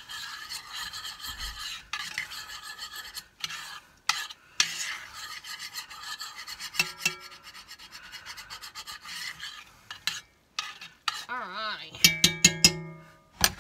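Metal spoon scraping and stirring browned sausage and onion across the bottom of an enameled cast-iron pot, working the browned bits (fond) loose. Near the end the spoon strikes the pot's rim about five times in quick succession, with a ringing clink.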